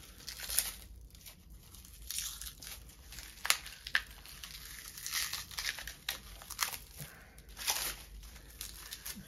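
Plastic wrap, like pallet stretch film, being picked at and peeled off a wooden leather strop: irregular crinkling and tearing rustles, with a couple of sharp clicks in the middle.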